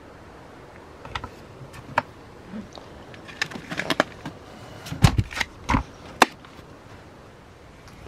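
A run of irregular clicks and knocks, like objects being handled, over a steady background hiss; the loudest are a few heavier knocks about five to six seconds in.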